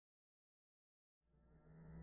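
Dead silence, then a low synthesized drone of held tones fades in a little over a second in and swells toward the end.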